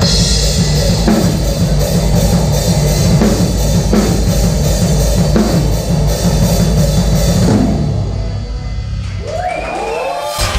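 Rock music with a driving drum kit and heavy bass. About three-quarters of the way through the drums drop away into a quieter passage with sliding pitched notes.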